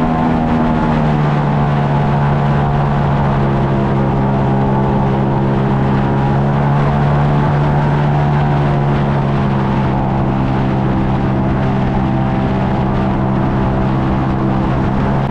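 An airboat's engine and air propeller running steadily at cruising speed. The pitch drops a little about a second in, then holds.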